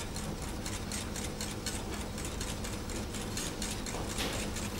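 Wire balloon whisk beating a red wine sauce in a metal saucepan, its wires clicking and scraping against the pan in quick, irregular ticks.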